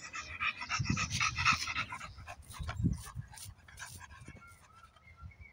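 English bulldog panting rapidly, loudest in the first two seconds, then easing into a few short snuffling clicks.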